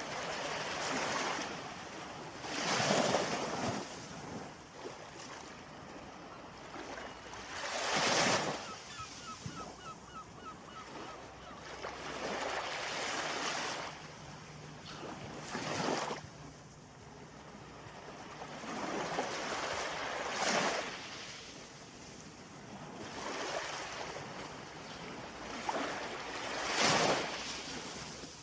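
Ocean surf: waves surging and breaking one after another every few seconds, with five sharper crashes among the swells.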